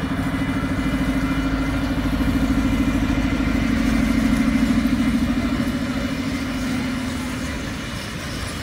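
Zooliner miniature train's locomotive engine running as the train passes, a steady pulsing drone with a low rumble that swells, is loudest about four to five seconds in, and fades near the end.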